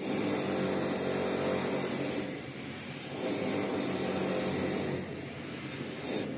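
A motor-driven machine running steadily with a high whine over it. It eases off for a moment about two seconds in and again near the end, then cuts off abruptly.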